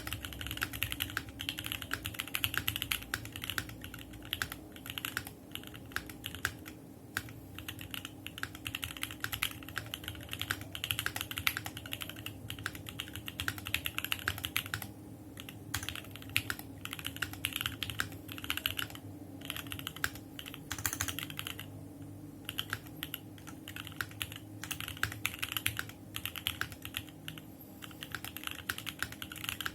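Typing on a Korno65 custom mechanical keyboard with stock unlubed Seal switches, ABS doubleshot keycaps, an FR4 plate and foam in the case. The keystrokes are fast and continuous, with a few short pauses.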